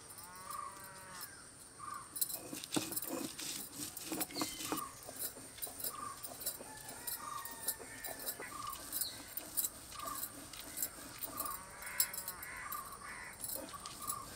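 Stone roller scraping and knocking across a flat grinding stone as grated coconut is ground by hand, in short repeated strokes. Crows caw twice, near the start and about twelve seconds in, and another bird repeats a short note about once a second.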